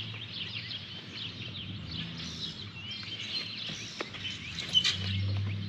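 Songbirds chirping and singing, many short high calls overlapping all through. A low hum comes up near the end.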